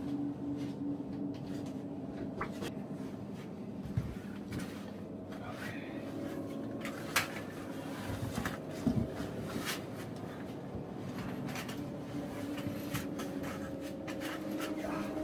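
Scuffs, scrapes and scattered knocks of someone crawling and climbing through a tight rock passage in a cave, over a steady low hum.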